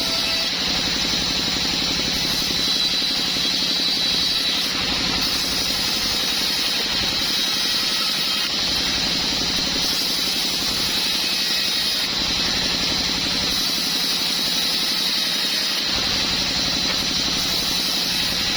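Small sawmill wood saw machine running steadily, a continuous even mechanical hum.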